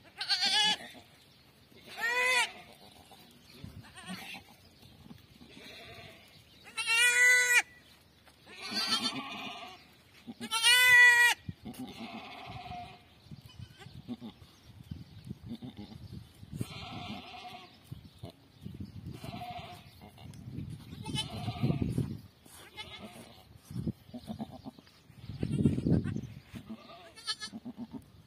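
Goats bleating, a nanny goat with her newborn kids: several loud, drawn-out bleats in the first twelve seconds, the loudest about seven and eleven seconds in, then softer, shorter bleats. A few low muffled rumbles come in the second half.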